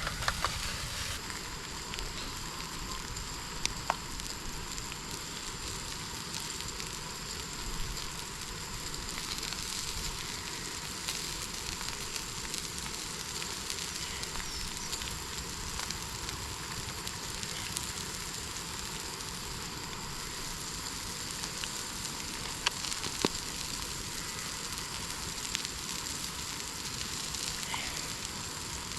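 Beef burgers frying in a pan on a gas camping stove, sizzling steadily, with a few sharp pops and spits.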